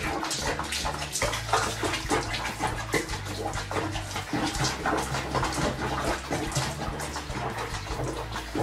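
Water splashing in a small basin where a cat sits chest-deep, over background music with a steady bass line.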